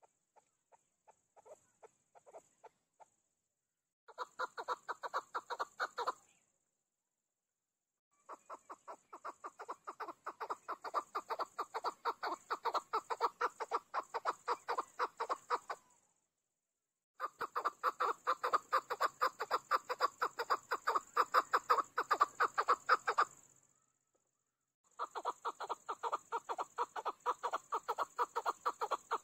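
Caged chukar partridge calling: long runs of rapidly repeated chuk notes, about five a second, in four bouts with short silent gaps between them. Each bout grows louder as it goes, and a few soft notes come at the start.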